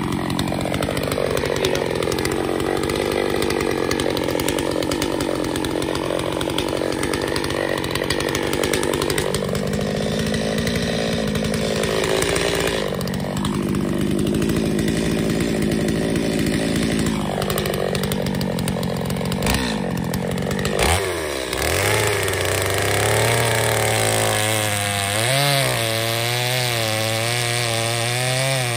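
Chainsaw running under load while cutting a large sycamore round into firewood, its engine pitch dipping and recovering several times. About three quarters of the way through, the engine settles to a lower, wavering pitch.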